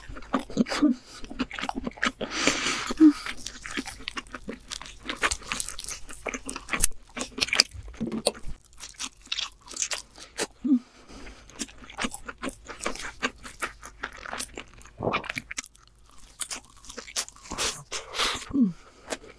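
Close-miked crunching and chewing as king crab meat coated in crushed hot Cheetos is bitten and eaten. A few short, falling 'mm' hums come between bites.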